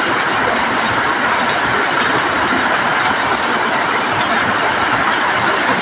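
Heavy rain falling steadily on roofs: a dense, even hiss with no let-up.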